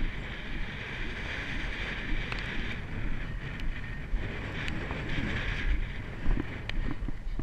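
Wind rushing over an action camera's microphone as a Haflinger horse canters across grass, with the dull, irregular thuds of its hoofbeats underneath and a few sharp clicks.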